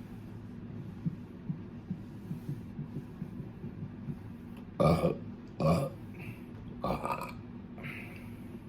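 Three short, loud burps, made voluntarily on command without soda, about five, six and seven seconds in, followed by a fainter fourth. A low steady hum runs underneath.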